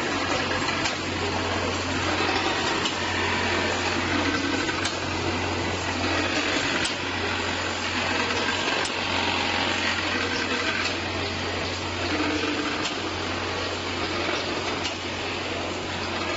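Can filling line machinery running steadily: the rotary can-feeding turntable, filling turntable and can conveyor, with a constant low hum under a busy mechanical rattle and a few light clicks near the middle.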